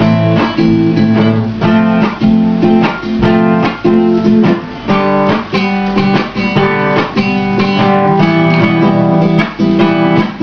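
Acoustic guitar strummed in a steady rhythm, playing an instrumental passage of chords without singing.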